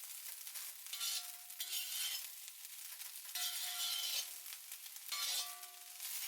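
Vegetable fried rice being stirred and tossed in a pan on low heat, a spatula scraping the pan in repeated strokes about once a second with a faint ring from the pan, over a light sizzle.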